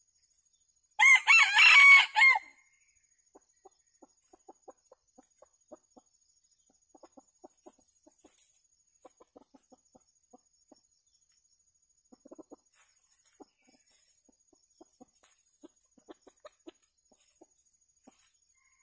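A junglefowl rooster crows once about a second in, a short crow of about a second and a half. After it comes soft, scattered clucking from the feeding birds.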